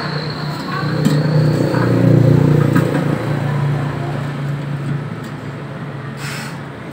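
Low engine hum of a motor vehicle running close by, swelling about two seconds in and fading away after about five seconds. A few light clicks come from a plastic fuel pump assembly being handled and fitted into a motorbike fuel tank.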